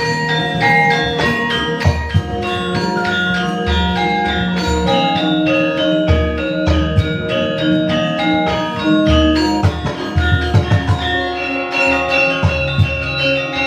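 Javanese gamelan ensemble playing: bronze metallophones and kettle gongs ring many overlapping struck notes, with repeated drum strokes beneath.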